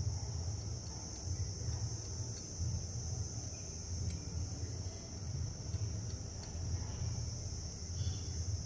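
Faint light taps and scrapes of a wooden stirring stick and a metal palette knife against a small plastic cup as pigment is stirred into resin, over a steady high-pitched whine and a low rumble in the background.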